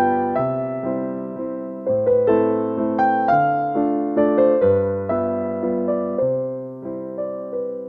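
Background music: gentle piano music, struck chords and melody notes fading after each attack, over a bass note that changes every second or two.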